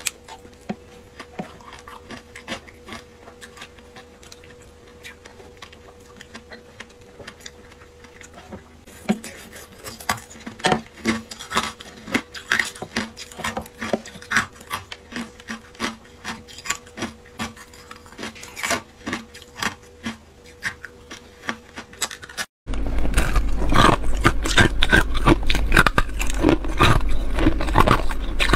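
Thin sheets of ice cracking and crunching as they are handled and broken by hand, a steady patter of small sharp cracks that grows busier partway through. Near the end the sound cuts to louder crunching of ice being bitten, with a low hum behind it.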